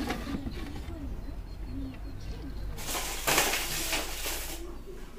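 Aluminium foil trays crinkling and rattling as a hand lays them out, in a noisy burst of about a second and a half near the middle.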